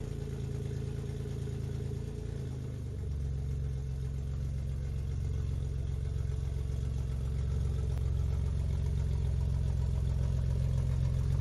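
Engine idling steadily, its note shifting slightly and growing a little louder about three seconds in.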